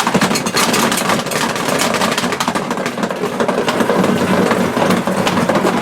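Small portable RV washing machine running hard, its motor humming under a fast, continuous rattling clatter.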